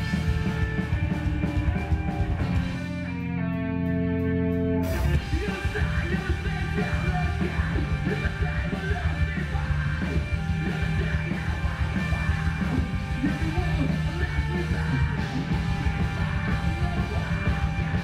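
Loud rock music with electric guitar, in a punk style. About three seconds in the band drops to a held, ringing chord for roughly two seconds, then the full band comes back in.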